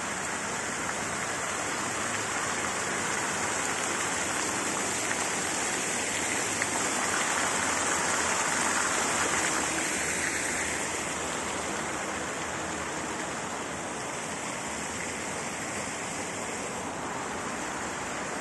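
Large tiered fountain's water jets splashing down into its basin: a steady rushing hiss that swells in the middle and eases off in the second half.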